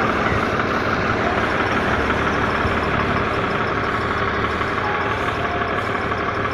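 Heavy engine of road-works machinery running steadily at idle, a constant drone with no change in speed.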